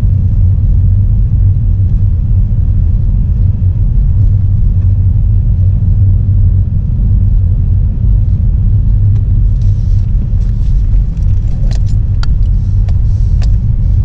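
Steady low rumble of road and engine noise inside a moving car's cabin, with a scatter of light clicks and knocks in the last few seconds.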